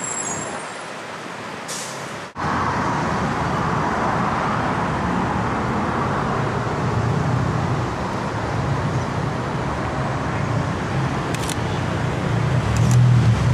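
Steady city traffic noise rising from the streets below. It starts abruptly a couple of seconds in, and a low rumble grows louder near the end.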